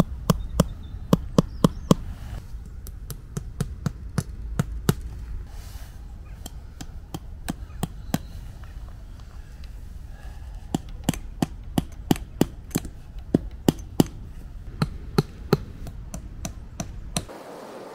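Hammer blows on wooden fence posts: several quick runs of sharp taps, a few a second, with short pauses between runs.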